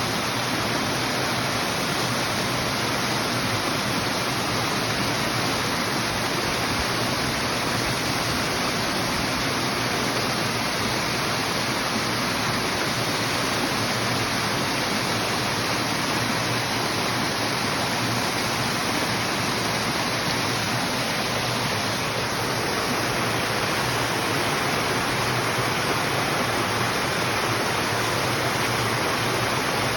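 Stream water flowing and splashing in a steady rush.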